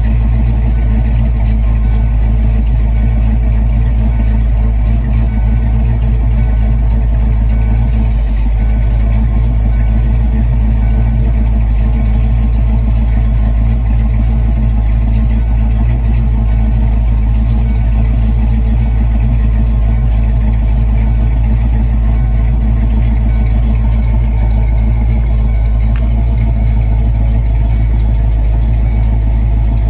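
Foxbody Mustang's stock 5.0 HO V8, fitted with an E-303 camshaft, idling steadily at the exhaust outlet.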